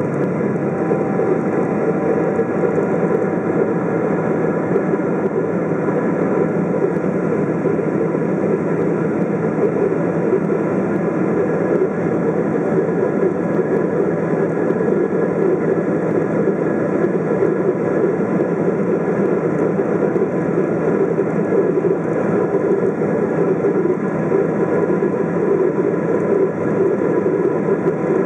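Steady cabin noise of a Boeing 777-200 climbing after takeoff: the drone of its jet engines and the rush of air, heard from a seat over the wing, with a few faint steady tones above it.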